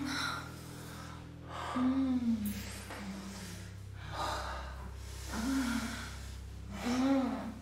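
A person gasping and moaning: about five short breathy cries, each rising and then falling in pitch, every second or two, over a low steady hum.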